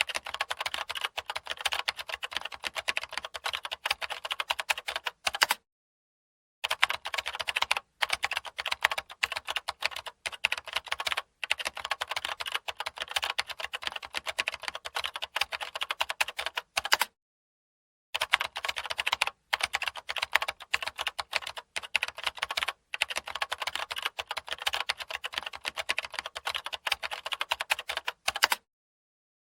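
Rapid, continuous typing on a computer keyboard, with dense fast key clicks that stop dead for about a second three times.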